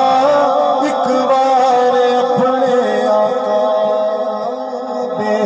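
A man singing a Punjabi naat into a microphone over a sound system, drawing out long held notes that glide slowly in pitch.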